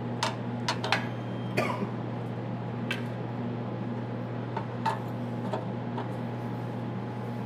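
Scattered small clicks and taps as hands work the fiber pigtails, LC connectors and splice tray inside an optical distribution frame. They come most often in the first two seconds, then singly about three and five seconds in, over a steady low hum.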